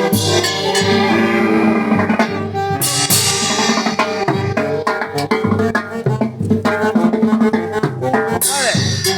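Live dance band playing, with drum kit and percussion keeping a steady beat under bass and melody instruments.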